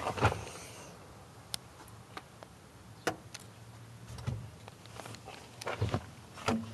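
A scattering of light clicks and knocks, about a dozen spread unevenly, from things being handled inside a pickup truck's cab, over a faint low hum.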